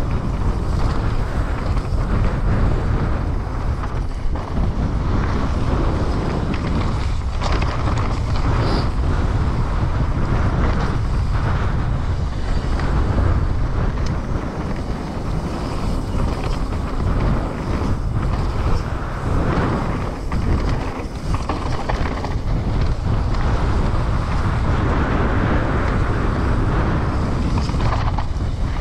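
Wind rushing over an action camera's microphone, with the tyres of a Trek Slash 9.9 enduro mountain bike rolling over a dirt trail during a fast descent. Occasional short clatters come from the bike over bumps.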